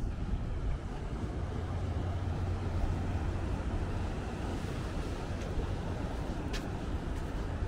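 Outdoor city ambience: a steady low hum under an even hiss, with one short sharp click about six and a half seconds in.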